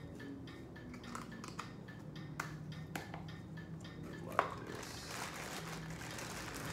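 A few sharp plastic clicks and taps as a small plastic cup is handled over a bag of seafood, the loudest about four and a half seconds in. Then a clear plastic bag crinkling as it is gathered up and handled.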